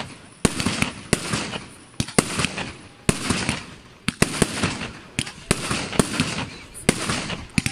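Aerial firework shells bursting in rapid succession, with sharp bangs about twice a second, each trailing off into a crackling fizz.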